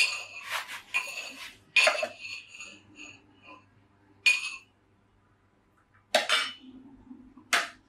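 Metal pestle clinking and scraping in a metal mortar: a quick flurry of ringing clinks at first, then three single, well-spaced clinks.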